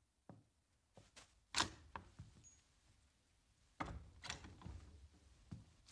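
Wooden interior door being handled: a series of separate knocks, thuds and latch clicks, the loudest about a second and a half in and a cluster of thuds about four seconds in.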